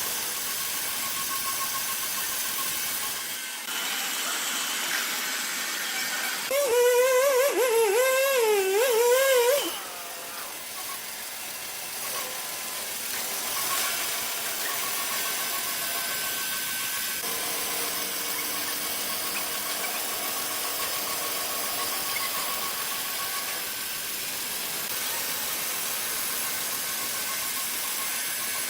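Sawmill machinery running with a steady hiss, broken about a quarter of the way in by a loud, high squeal whose pitch wavers for about three seconds.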